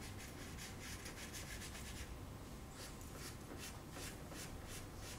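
Faint scratching of a white Conté crayon stroked back and forth across toned drawing paper, short strokes repeating about three times a second, laying highlight onto the drawing.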